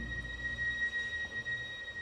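Chamber string orchestra's low strings, cellos and double basses, dying away after a loud low chord, quiet and fading. A thin, steady high-pitched whine sits under it throughout.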